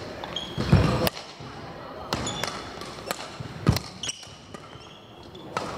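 Badminton rally in a large hall: a string of sharp racket-on-shuttlecock hits, roughly one a second. Two heavy thuds of feet landing on the wooden court are the loudest sounds, and there are short high shoe squeaks.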